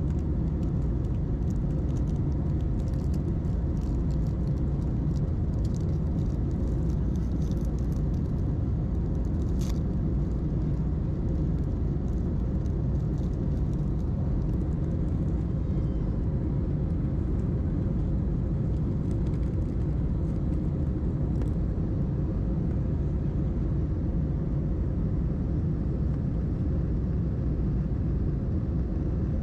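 Steady low rumble of an Airbus A321's engines and rushing air, heard inside the passenger cabin during the climb after takeoff, with a few faint ticks in the first ten seconds.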